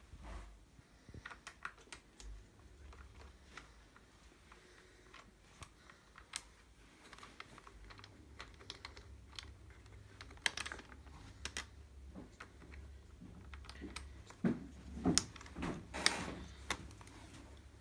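Irregular light clicks and taps of small parts and tools being handled, with a few louder knocks near the end, over a faint low hum.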